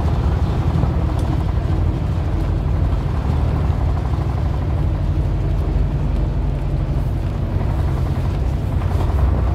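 Vintage bus driving at a steady speed: engine running evenly under road and wind noise.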